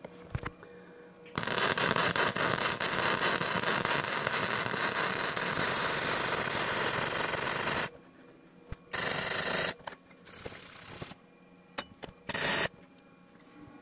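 Electric welding arc crackling as a steel billet is welded shut around its seams: one long weld of about six and a half seconds starting over a second in, then three short bursts of weld near the end.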